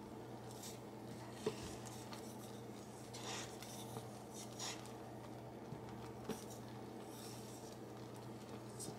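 A wooden spoon stirring and scraping through a pot of just-boiled strawberry jam to settle the boil, with a few light knocks of the spoon against the pot. A faint, steady hum runs underneath.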